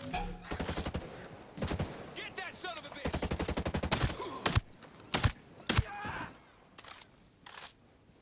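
Gunfire: rapid strings of shots at about ten a second in the first half, then several loud single shots spaced about half a second apart.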